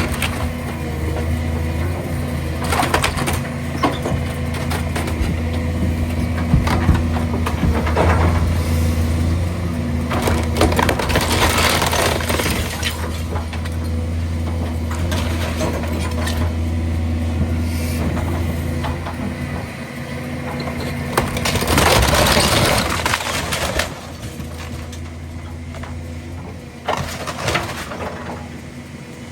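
Heavy demolition machine's engine running steadily while a house is torn apart: repeated crunching and breaking of the structure, the biggest crash about 22 seconds in. The engine drone drops away about 20 seconds in.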